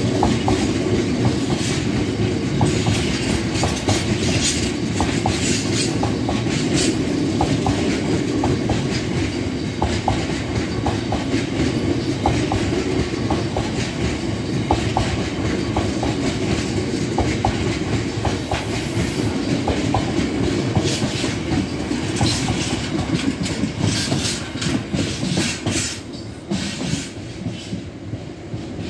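Freight train of biomass hopper wagons rolling past at a level crossing: a steady rumble with the clickety-clack of wheels over rail joints and occasional short squeaks. About 26 seconds in, the last wagon passes and the rumble drops away.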